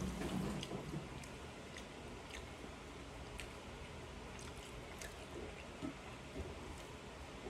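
Faint chewing with small, scattered mouth clicks, most active in the first second.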